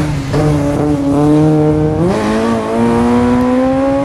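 Race-prepared Volkswagen Golf Mk1 rally car's four-cylinder engine held at high revs. Its note steps up sharply about halfway through, then keeps climbing slowly.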